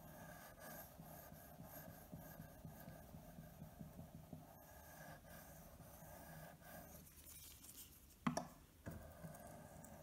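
Faint repeated rubbing of a carving knife's blade stroked over an oiled homemade natural whetstone cut from a pebble, a soft stone used for finishing the edge. The strokes pause near the end, broken by a short knock, then resume.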